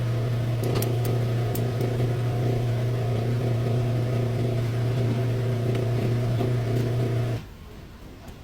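Chevrolet Blazer engine running steadily at idle, a constant low hum, which cuts off abruptly about seven seconds in.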